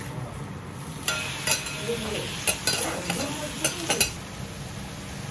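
Okonomiyaki sizzling on a steel teppan griddle while it is flipped with two metal spatulas. The sizzle gets louder about a second in, and the spatulas scrape and clack sharply against the griddle several times.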